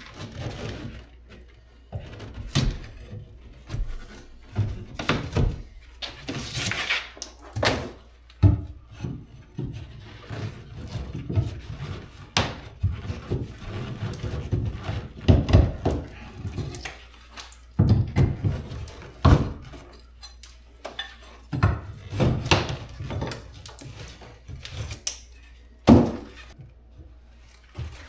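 Old drywall being pulled and broken off the wall framing by hand: irregular thuds, knocks and cracks as pieces break away and drop, with a scraping tear about six seconds in.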